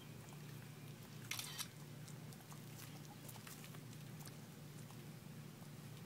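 Tortoise biting and chewing a piece of tomato: scattered small wet clicks, with a brief louder crunch about a second and a half in, over a steady low hum.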